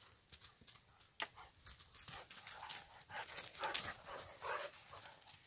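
Jindo dogs panting and snuffling at close range, with scattered short scuffs and clicks.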